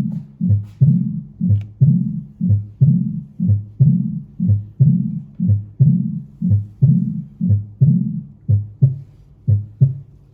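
Heart sounds heard through a stethoscope: a steady heartbeat of about one beat a second, each beat a low thump, with a low humming murmur filling the gaps between beats.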